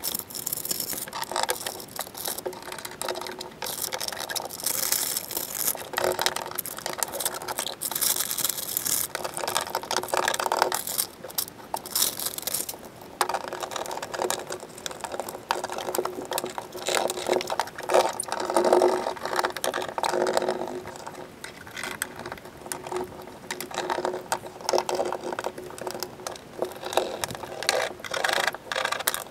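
Paper template and foil-backed Dynamat sound-deadening sheet being handled, crinkled and pressed down by hand onto a bare steel car floor pan: a busy run of rustling, crackling, small clicks and taps that swells and fades.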